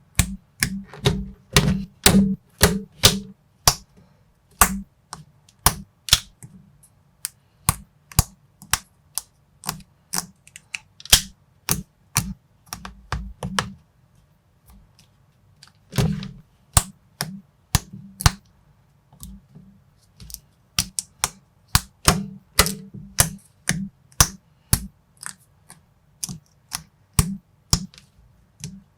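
Plastic building bricks clicking and snapping together as a model is assembled by hand, in a quick, irregular run of sharp clicks with a short lull about halfway through.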